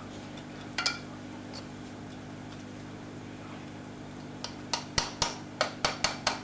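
Knife chopping on a cutting board: a run of quick, sharp knocks at about three to four a second, starting about two-thirds of the way in. A single knock comes about a second in, over a steady low kitchen hum.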